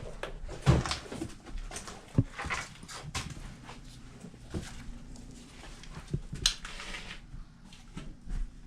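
Scattered knocks and clatter, a few sharp ones, over faint rustling.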